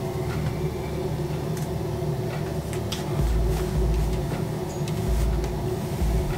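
Home air conditioning unit running nonstop: a steady hum made of several tones. Over it come light clicks and rustles of hands working hair into a ponytail, and a few low thuds from about three seconds in.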